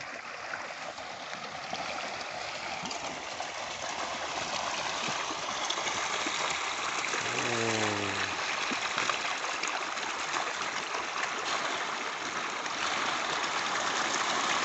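Hundreds of caged tilapia thrashing and splashing at the surface in a feeding frenzy as feed pellets hit the water: a dense, continuous splashing that grows louder over the first several seconds.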